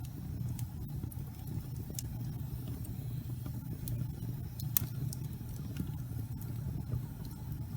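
Wood fire burning in a fireplace: a steady low rumble of flames with scattered sharp crackles and pops, the loudest a little under five seconds in.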